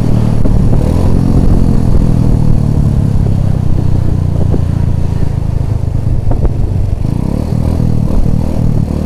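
Small motorcycle's engine running steadily while riding along, the sound dominated by a low engine drone.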